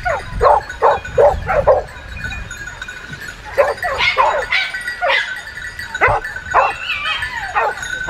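A dog barking in short, sharp barks: four quick barks about a second in, then a looser run of barks and yelps, some bending in pitch, over a faint steady high tone.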